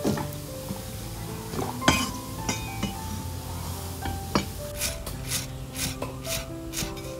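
A cleaver chopping spring onions on a chopping block in quick, even strokes about three a second, starting about five seconds in. Before that, a few scattered knocks and clinks, over background music.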